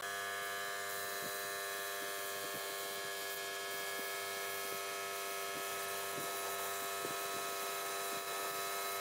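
Air compressor running with a steady hum, with the air hiss of a gravity-feed spray gun as it sprays finish onto wood.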